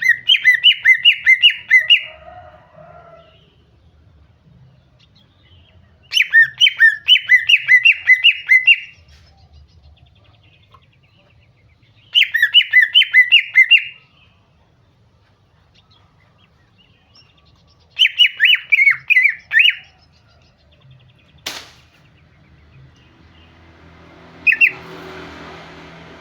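Female cucak ijo (green leafbird) calling: a fast phrase of about eight sharp chirping notes, repeated four times at even six-second gaps, then one short note near the end; a call used to provoke a male into singing. A single sharp click sounds between the last phrase and the final note.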